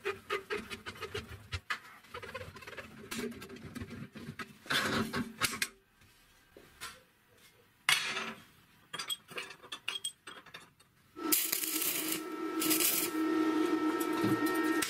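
Steel parts clinking and knocking against a steel welding table and each other: a run of short, sharp metallic knocks with quiet gaps between them. In the last few seconds a steady hum with a faint held tone comes in.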